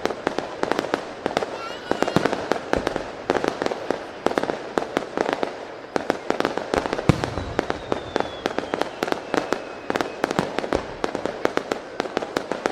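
Aerial fireworks display: many shells bursting in quick, irregular succession, sharp bangs over a continuous crackle, with a faint whistle sliding down in pitch partway through.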